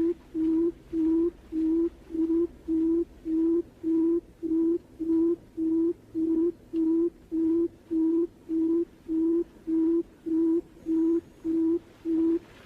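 Barred buttonquail's low hooting call, a long, very even series of short hoots at about two per second.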